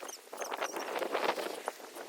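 Many quick, high chirps from small animals over a steady rushing noise, with scattered light ticks.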